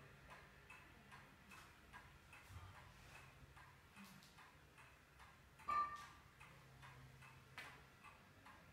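Faint, steady ticking of a clock, about two ticks a second, in a quiet room. About two-thirds of the way through there is one short, louder clink with a brief ringing tone.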